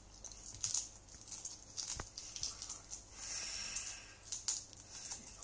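Century egg's shell being peeled by hand: irregular small crackling clicks and scratches as bits of shell are picked off, with one sharper click about two seconds in.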